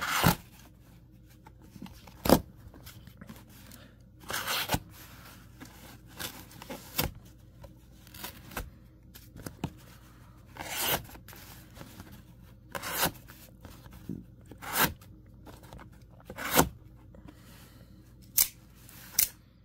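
Combat Troodon out-the-front knife blade slicing through cardboard in about a dozen separate cutting strokes, one every second or two. The cuts go through cleanly, with a few sharp clicks among them.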